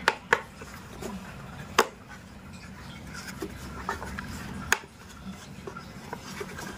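Hard plastic parts of a car side-mirror housing being handled, giving a handful of sharp clicks and knocks with light rubbing between them.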